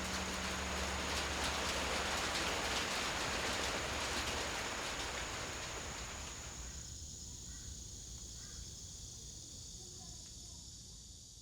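Low hum of a large bronze Korean temple bell dying away after a stroke, slowly fading under a steady hiss. The hiss drops away about seven seconds in, leaving a few faint chirps.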